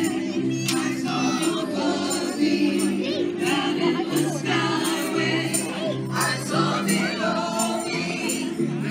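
Music: a song with singing over a steady bass line and a regular beat.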